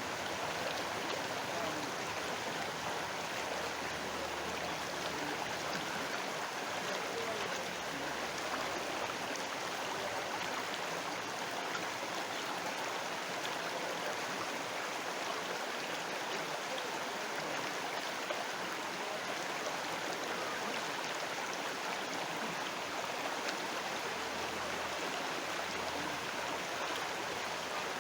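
River water flowing: a steady, even rush of running water that does not change.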